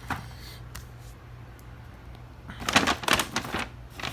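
Fireworks packaging being handled: rustling and clattering, loudest in a cluster of quick strokes from a little past halfway through, over a steady low hum.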